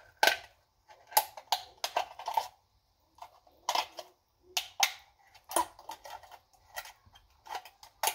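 Aluminium soda can full of frozen soda being picked at with a knife and knocked over a plastic cup: a string of irregular sharp metallic clicks and taps, some with a short ring.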